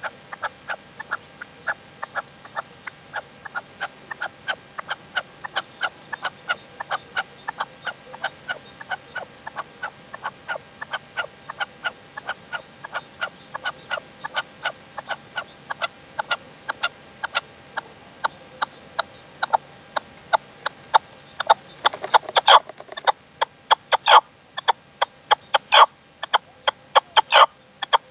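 Red-legged partridge calling in a long, even series of short clucking notes, about four a second. The notes become much louder about three-quarters of the way through.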